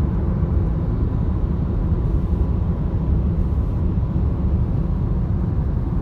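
Steady low rumble of road and engine noise inside a car's cabin at highway speed.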